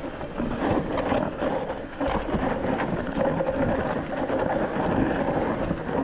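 Mountain bike riding over rough trail: continuous tyre and frame rumble with frequent small knocks and rattles.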